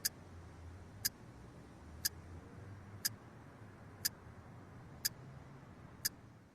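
A clock ticking, one sharp tick every second, seven ticks in all, over a faint, steady low hum.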